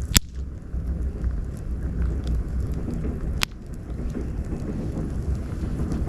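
Wood campfire burning with a low rumble and scattered small crackles, with two sharp pops from the burning wood, one just after the start and one about three and a half seconds in.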